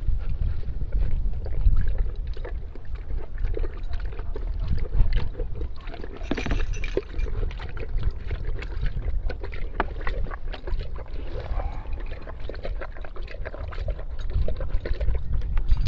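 Dog lapping water from a bowl in a quick, uneven run of wet clicks and splashes, with wind rumbling on the microphone.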